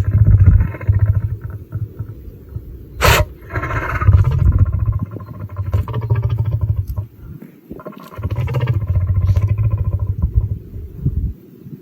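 A lion making long, low, rumbling vocal bouts, three of them separated by short pauses. About three seconds in there is one sharp, sudden burst, the lion's sneeze.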